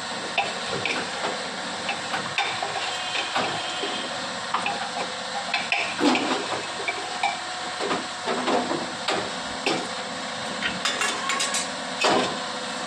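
A metal spoon clinking and scraping against a cooking pot, in irregular knocks with the loudest near the end, over a steady hiss from the stove.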